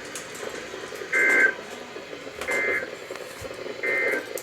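EAS end-of-message signal: three short bursts of two-pitch SAME digital data tones about 1.3 s apart, over steady radio hiss, marking the end of the alert broadcast.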